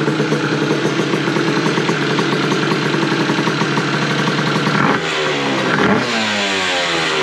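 Yamaha Aerox scooter engine, fitted with a Smart Carb carburettor, running just after being started: a steady even run for about five seconds, then short throttle blips that rev it up and let it fall back.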